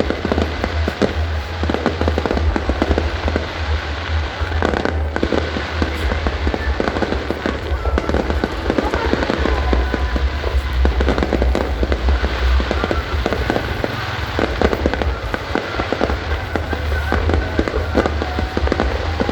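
Fireworks display going off without pause: dense crackling bursts over a heavy low rumble of booms.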